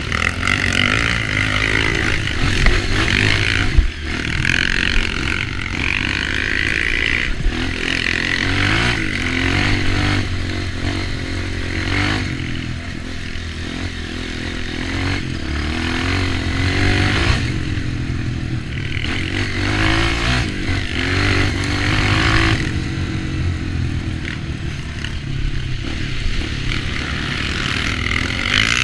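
Off-road trail motorcycle engine running under load, its revs rising and falling again and again, with scattered knocks and rattles from riding over rough ground.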